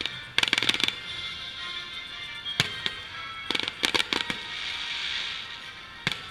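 Aerial fireworks shells bursting: a rapid volley of sharp bangs and crackles about half a second in, single reports a little before and after three seconds, another quick volley around four seconds, and one more bang near the end, with music playing underneath.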